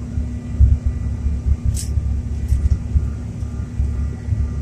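Steady low rumble of an airliner's engines and airflow heard from inside the cabin, with a steady hum under it and a brief hiss about two seconds in.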